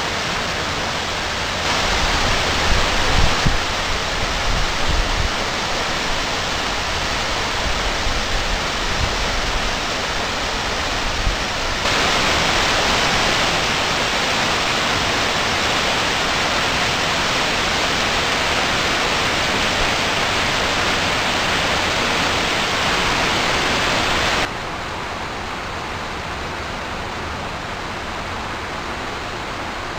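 Water jets of a large illuminated fountain falling into its basin: a steady rushing hiss of splashing water. It steps louder partway through and drops to a quieter, duller hush near the end.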